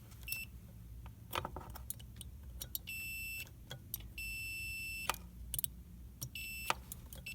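Multimeter on its continuity setting beeping as the test leads touch pairs of a refrigerator compressor's terminals: four high steady beeps, the first very short, the others about a half, one and a third of a second long, with clicks of the probes on the metal in between. Each beep shows continuity through the compressor's windings.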